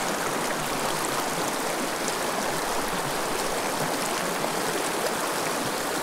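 Small high-mountain stream running: a steady, even rush of water.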